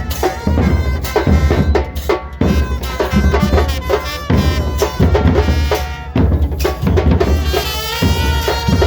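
A band playing, with drums striking a steady, driving beat and wind instruments holding sustained notes over it.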